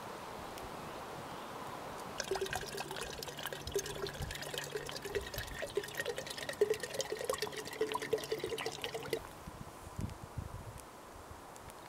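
Water pouring from a plastic bottle into a glass jar. It starts about two seconds in, runs for about seven seconds, then stops.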